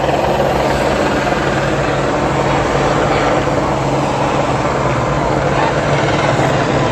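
Helicopter circling low overhead, its rotors making a loud, steady thrum.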